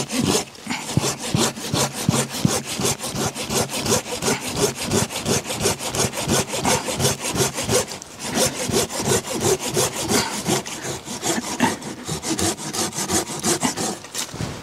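Silky Gomboy folding saw cutting through a dead standing red maple trunk about two and a half inches thick, in quick, even rasping strokes, about four a second. The sawing breaks off briefly about eight seconds in and stops just before the end.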